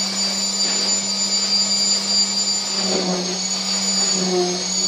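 Electric concrete vibrator running in freshly poured slab concrete: a steady hum with a high-pitched motor whine that wavers slightly.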